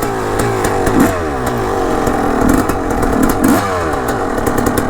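Dirt bike engine being ridden, its revs repeatedly climbing and falling as the throttle is worked on and off.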